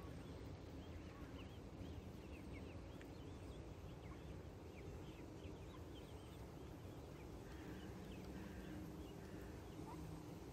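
A brood of ducklings peeping: many short, high, slurred peeps in quick succession, thinning out over the last few seconds, over a faint steady low rumble.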